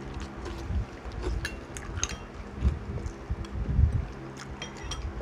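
Eating sounds: spoons clinking and scraping on boiled duck eggs and bowls, with scattered light clicks. Low rumbles come about halfway through and again a little later, over a steady low hum.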